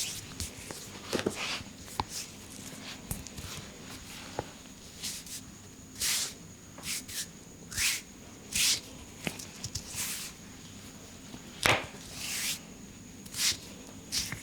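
Hands massaging bare skin: a series of short rubbing and brushing strokes, about one a second, with a sharper slap-like hit near twelve seconds.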